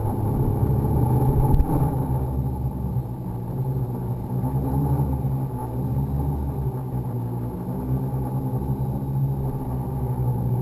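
Electric motors and propellers of a radio-controlled aircraft running steadily, picked up by its onboard camera together with rushing air. There is one brief knock about a second and a half in.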